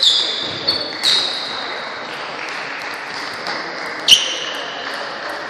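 Table tennis ball hits, sharp high-pitched pings of the celluloid ball off bats and table, a few near the start and the loudest about four seconds in, over the steady hubbub of a sports hall with other matches going on.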